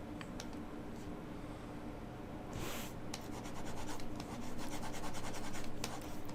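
Stylus strokes rubbing and scratching on a graphics tablet, with many small sharp clicks, the strokes heaviest about two and a half seconds in and again through the second half.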